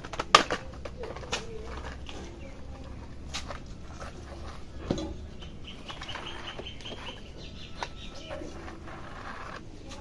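Hands working a head in an oil head massage: several sharp slaps and clicks, scattered and uneven, the loudest just after the start, with softer rubbing between.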